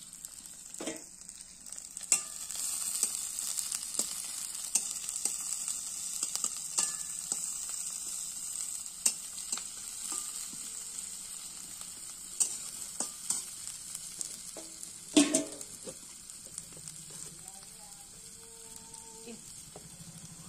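Sliced onions sizzling in hot oil in a steel kadai, with scattered clicks and clatters as they are stirred. The sizzle grows louder about two seconds in, and one sharp clatter comes a little after halfway.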